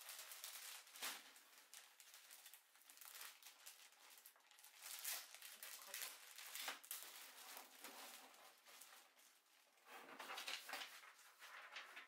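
Quiet rustling and crinkling handling noise with scattered small clicks, cutting off suddenly at the end.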